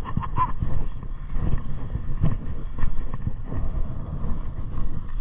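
ODR mini skis (snowblades) sliding and scraping over groomed snow, an uneven hiss with irregular scrapes, with wind rumbling on a body-worn microphone.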